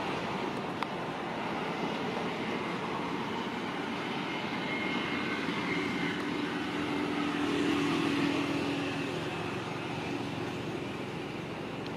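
Steady outdoor background noise, like distant traffic or wind, with a low engine-like hum that swells and fades about two-thirds of the way through.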